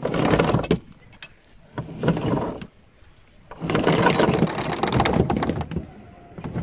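Anchor chain running out over the yacht's bow windlass, in bursts, the longest from about three and a half to six seconds in, as the anchor is let down.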